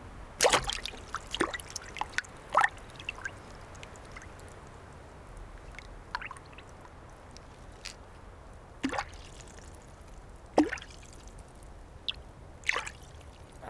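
Scattered water drips and small plops and splashes as a common frog moves about in a pond, a few loud drops standing out among fainter ones.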